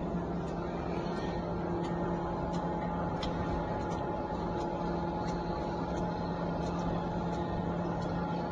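Wonton-wrapper machine running: a steady motor hum with a few held tones, and a faint regular tick a little more than once a second as it works.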